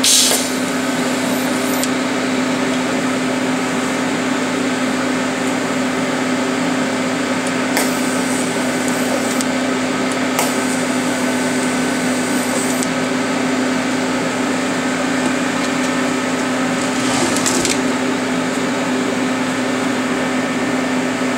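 TIG welder humming steadily. Short stretches of hissing arc come in about eight seconds in, again near eleven seconds and briefly near seventeen seconds, as fusion tacks are struck on the steel lower control arm.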